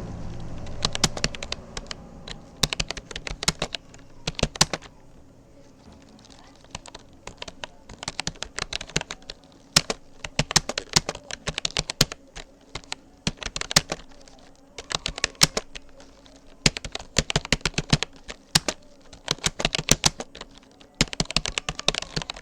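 Keystrokes on a Rapoo computer keyboard during fast touch typing. The clicks come in quick runs broken by short pauses.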